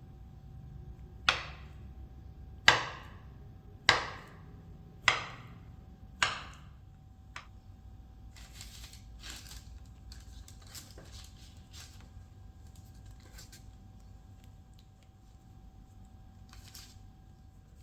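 A kitchen knife chopping on a wooden cutting board: five firm strokes about a second apart, then quieter scraping and rustling as the cut pieces are handled.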